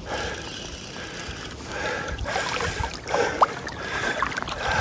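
River current rushing and sloshing around a wading angler's legs as he steps through the water, with a few short splashes.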